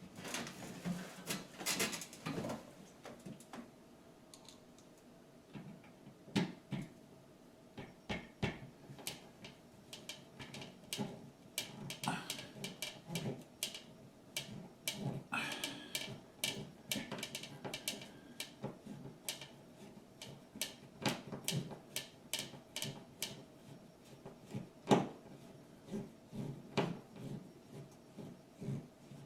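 Irregular clicks, taps and knocks of hand work as a plastic doorbell chime unit is handled and fastened to the drywall, with one louder knock near the end.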